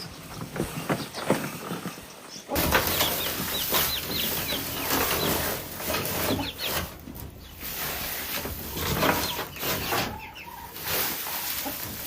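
Chickens clucking and calling amid rustling, getting suddenly louder about two and a half seconds in.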